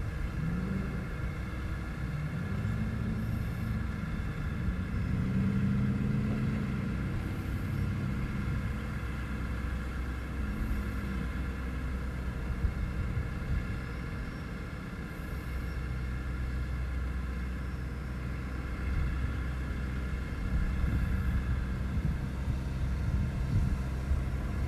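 A vehicle engine running, its pitch rising and falling several times in the first ten seconds and then holding steady, over a constant low rumble and a steady whine.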